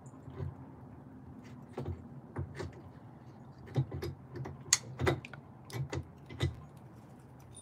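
A dozen or so irregular clicks and knocks of hard parts being handled and fitted at a Veteran Lynx electric unicycle's pedal mount, the sharpest about halfway through.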